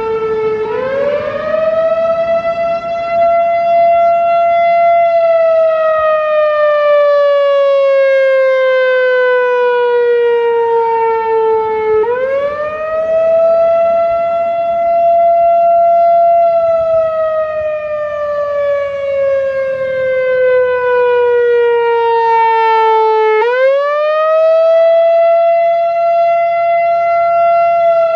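Whelen WPS-4004 electronic outdoor warning siren sounding the Attack signal. Its wail rises quickly, holds for a few seconds, then slides slowly down, and the cycle repeats three times, about every 11 seconds.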